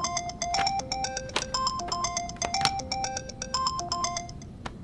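Mobile phone ringtone: a melody of short, bright electronic notes announcing an incoming call, which stops near the end.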